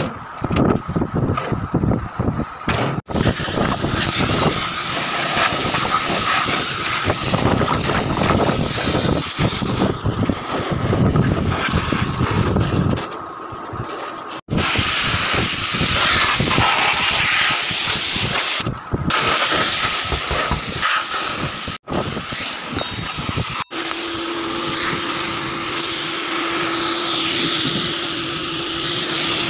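Steady rushing hiss of water and machinery, broken by several abrupt edit cuts. In the last few seconds a pressure washer jet sprays the cooling tower fill, with a steady hum under the spray.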